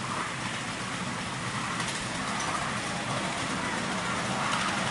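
Miniature steam locomotive modelled on LNER 4472 Flying Scotsman running, with a steady hiss of escaping steam, getting slightly louder near the end.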